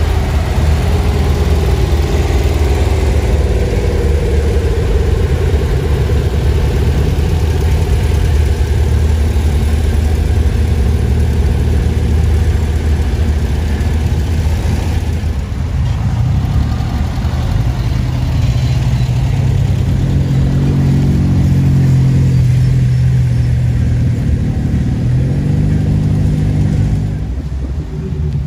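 Car engine running steadily at a low pitch, easing off around the middle, then pulling at a higher pitch for several seconds before dropping back near the end.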